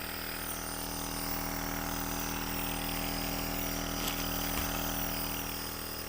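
A steady machine-like hum with hiss, with a brief click about four seconds in.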